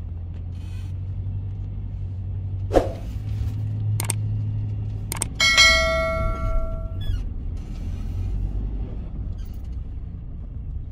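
Steady low rumble of a van's engine and road noise heard from inside the cabin. Over it plays a subscribe-button sound effect: three sharp clicks, then about halfway through a bright bell chime, the loudest sound, ringing for about a second and a half.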